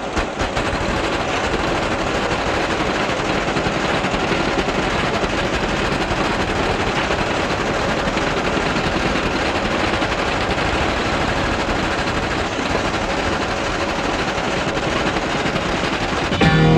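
Computer impact printer rattling steadily as it prints line after line on tractor-feed paper, a fast continuous chatter. Rock music comes in just before the end.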